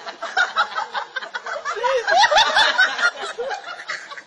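A man laughing hard, with a second person laughing alongside; a few rising high-pitched notes come about two seconds in.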